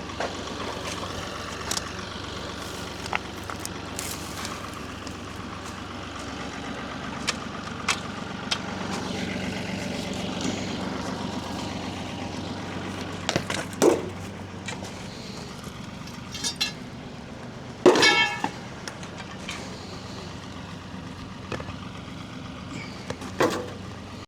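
Engine of a digging machine running steadily, with scattered sharp clanks and knocks, the loudest about 14 and 18 seconds in.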